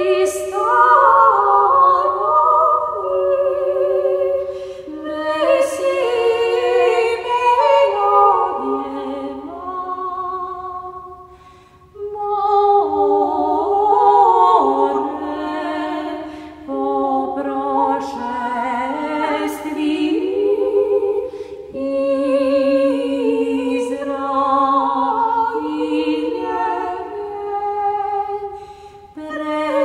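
Unaccompanied choir singing an Orthodox hymn in several parts, with sustained, slowly moving lines and a brief break between phrases about twelve seconds in.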